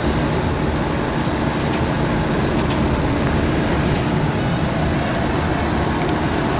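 A car engine idling with a steady rumble.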